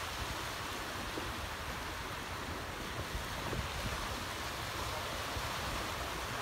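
Small waves washing steadily onto the shore, with wind rumbling on the microphone.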